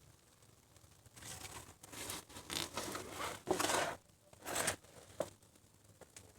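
Termites chewing in wood: irregular dry crackling and rasping that comes in bursts, loudest a little past halfway, with a single sharp click near the end.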